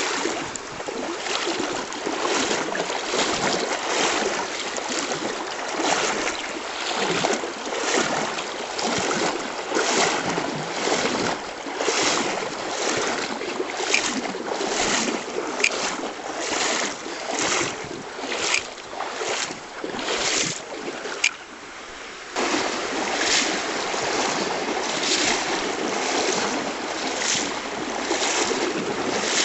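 Footsteps at a steady walking pace, about one and a half a second, over a continuous rush of river water and wind on the microphone.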